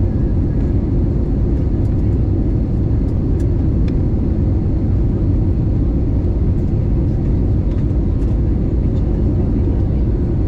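Passenger airliner's steady, deep rumble, heard from inside the cabin.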